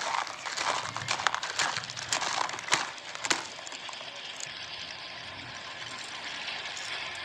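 Broken brick and concrete chunks clattering and knocking as they slide out of a tipped plastic toy dump truck's bed, with two sharper knocks a little after the middle, then dying away to a faint steady hiss.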